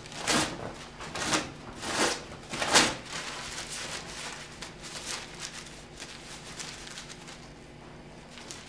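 Paper towels pulled from a wall-mounted dispenser: four quick rasping pulls about two-thirds of a second apart, followed by quieter rustling of the paper as it is handled.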